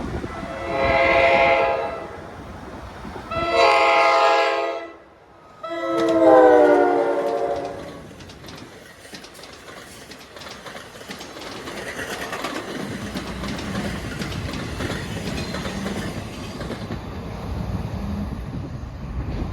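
Horn of an NJ Transit ALP-46 electric locomotive sounding three blasts for a grade crossing, the third dropping in pitch as the locomotive passes. Then the passenger train rolls through, a steady rumble with rapid clicking of wheels over rail joints.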